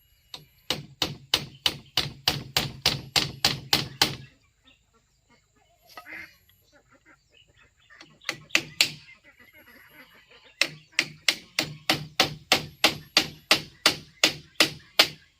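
Rapid hammer blows, about four a second, in three runs with pauses between: nails being driven into wood.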